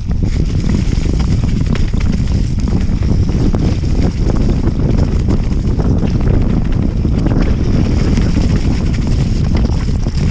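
Wind rushing over the microphone of a mountain bike descending a dirt downhill trail at speed, with steady tyre rumble and many small knocks and rattles from the bike over the rough ground.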